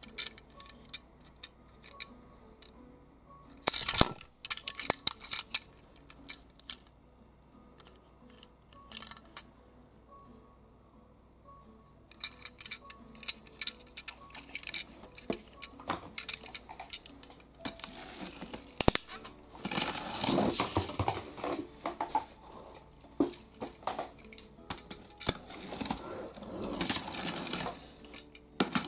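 Small die-cast metal toy car handled in the fingers: scattered sharp clicks and taps, then denser rattling and rubbing in the second half as it is turned and set down.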